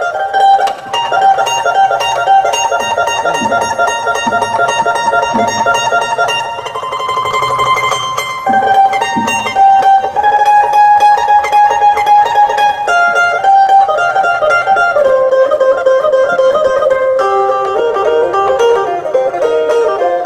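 Instrumental lam phloen, Isan-Lao folk music, led by fast runs on a plucked phin lute over held notes underneath.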